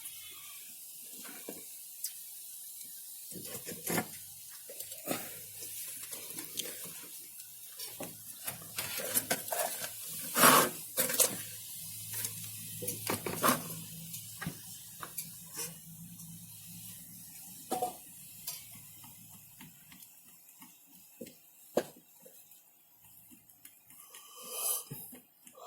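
Scattered clicks and clinks of small metal tools and parts being handled on a workbench. A low steady hum comes in a few seconds in and stops about two thirds of the way through.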